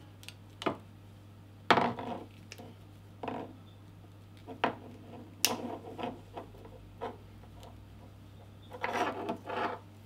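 Hands twisting and working the end of an Ethernet patch cable and its plastic RJ45 plug to break its wires: irregular rubbing, scraping and sharp plastic clicks, the loudest click about two seconds in and a quick flurry of rubbing near the end.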